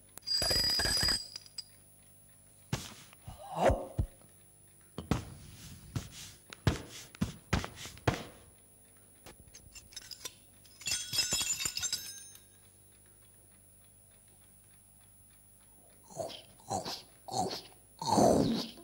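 Mouth-made eating sound effects: chewing and crunching noises, clicks and short grunts in scattered bursts, with a quiet stretch of a few seconds after the middle. The loudest parts are a crunchy noise burst near the start and a grunt near the end.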